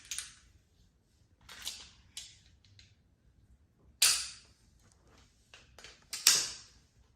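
Two semi-automatic 9mm pistols being handled and worked to show they are unloaded: light mechanical clicks, then two loud, sharp metallic snaps about two seconds apart, each with a short ring-out.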